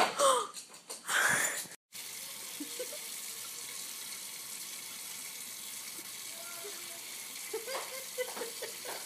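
Kitchen sink faucet running water into the basin, a steady hiss, starting about two seconds in after a couple of loud, brief sounds.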